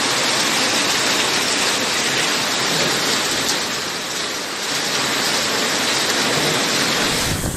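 Heavy rain and hail falling in a steady, dense hiss of drops striking cars and pavement during a hailstorm.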